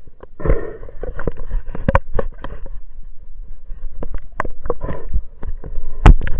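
Water sloshing against a small boat, with many sharp knocks and clatters, the loudest just before the end.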